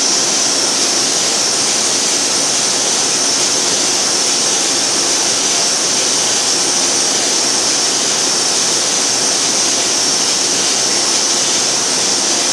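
Paper machine running in a paper mill: a loud, steady machinery roar with a strong high hiss that never lets up.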